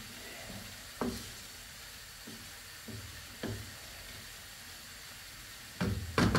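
Chopped vegetables dusted with flour frying in a nonstick wok: a steady sizzle while a wooden spatula stirs, with occasional taps against the pan and a louder cluster of knocks near the end. The flour is being browned into a vegetable roux.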